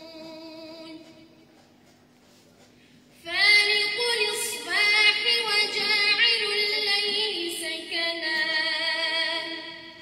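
A young woman's solo Quran recitation in tajweed style. A long, wavering held note ends about a second in and a short pause follows. About three seconds in a new phrase starts loudly, with long ornamented notes that ease off near the end.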